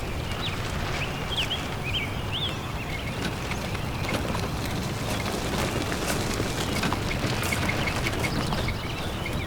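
Outdoor ambience: a steady rushing background with a few short bird chirps in the first couple of seconds and scattered faint clicks. It cuts off suddenly at the end.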